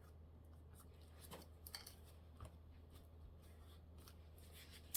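Near silence with a low steady hum and a few faint rustles and taps of paper and card being handled.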